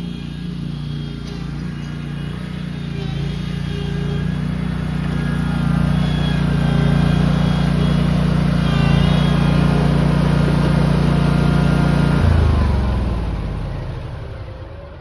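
Lawn mower engine running steadily, growing louder over the first several seconds, then shut off about twelve seconds in and winding down with falling pitch.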